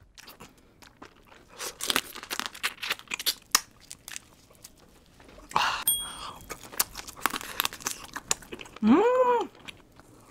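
Close-miked eating of spicy seafood (shrimp and lobster), with chewing and wet smacking clicks and a louder bite about halfway, all sped up to 1.5 times. Near the end comes a short appreciative voiced sound that rises and then falls in pitch.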